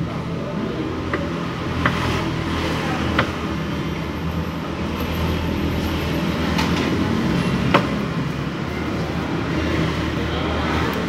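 A steady low mechanical hum, with a few sharp clinks about two, three and eight seconds in.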